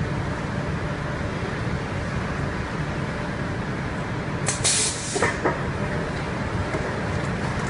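Factory conveyor line running: a steady low mechanical rumble, with a short burst of hiss about four and a half seconds in, followed by two faint clicks.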